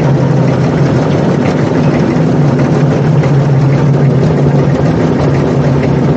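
Road roller's diesel engine running steadily with a low, even hum.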